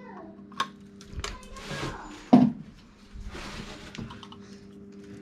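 Handling noises as a power adapter is taken out of a control panel setup: a sharp click about half a second in, rustling, and a loud thunk a little before the middle, over a steady low hum.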